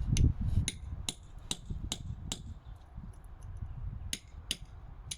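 Light metal taps, about two a second with a short pause in the middle: a hammer knocking at the drive shaft's ABS reluctor ring to work it off.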